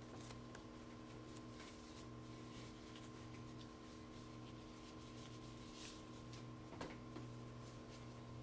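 Quiet room with a steady low hum, faint rustling of disposable exam gloves being pulled on and handled, and a single light knock about two-thirds of the way through.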